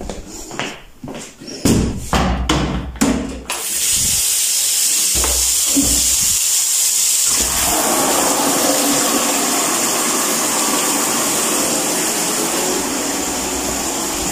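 A few knocks as a plastic mop bucket is handled, then water running steadily from a bathtub hand-shower hose into the bucket; the rushing sound grows fuller about halfway through as the bucket fills.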